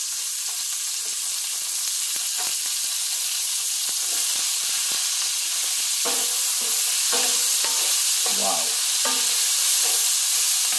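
Chopped vegetables sizzling steadily in olive oil in a cast-iron skillet, growing slightly louder, while a wooden spatula stirs them with scraping and tapping against the pan.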